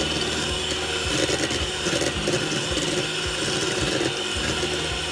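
Electric mixer beating egg whites and sugar into meringue, a steady whir that stops just at the end.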